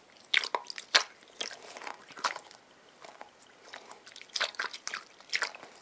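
Green rubber squishy toy, a liquid-filled sticky splat ball, squeezed and kneaded in the hand, giving an irregular run of soft, quiet crackles and squishes in small clusters.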